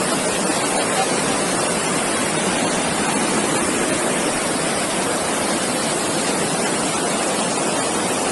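Flash-flood torrent of muddy water and debris rushing past, a steady loud rushing noise that does not let up.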